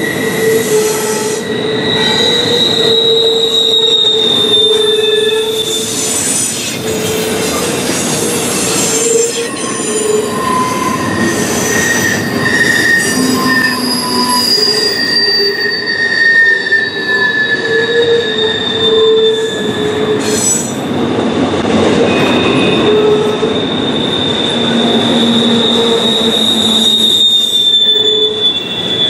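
Double-stack intermodal well cars rolling past, a steady rumble of steel wheels on rail with several high squealing tones from the wheels that waver and come and go.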